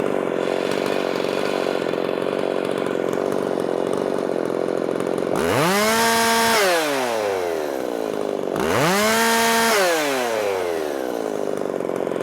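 Ported Makita 5600 two-stroke chainsaw idling, then revved twice to full throttle. Each rev is held for about a second before dropping back to idle.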